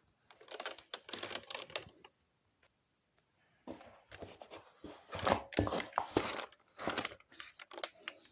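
Computer keyboard keys clattering in two irregular, rapid bursts, the second longer and louder, with plastic rustling among the clicks.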